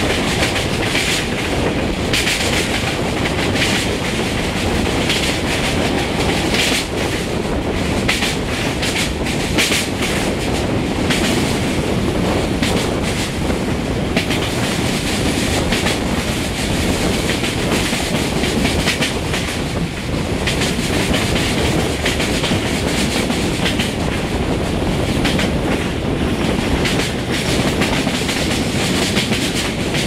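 Wheels of a VT 614 diesel railcar running along the track, heard from an open window: a steady rolling rumble with irregular clickety-clack from the wheels passing over rail joints.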